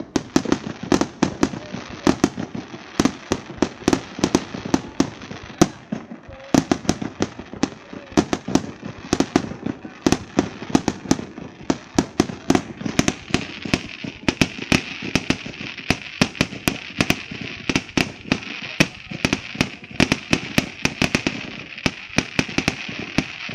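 Fireworks going off: a dense, irregular run of sharp bangs and cracks, several a second, over a continuous crackle.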